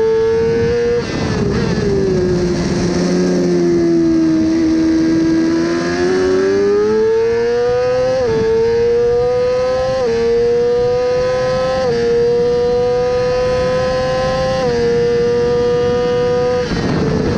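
Yamaha R6's inline-four engine at racing revs, heard from on board with wind rush. About a second in the revs drop away, stay low through a corner, then climb hard from about six seconds, with four gear changes, each a sudden step in pitch. Near the end the engine note gives way to wind noise.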